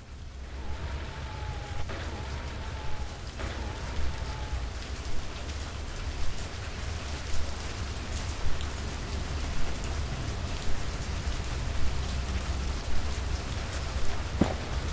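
Steady rain falling, with many scattered louder drops ticking and a low rumble underneath; it fades in over the first second.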